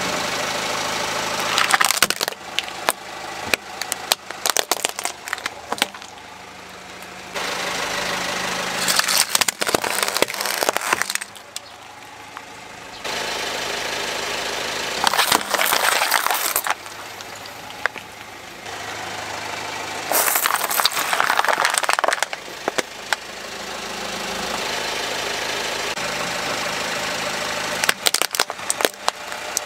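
A car tyre rolling slowly over plastic toys and plastic bottles and crushing them, with about five bursts of cracking and snapping over the steady sound of the car's engine idling.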